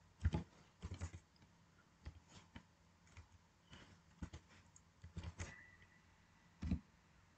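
Computer keyboard keystrokes: scattered single key clicks at irregular spacing, a few of them heavier.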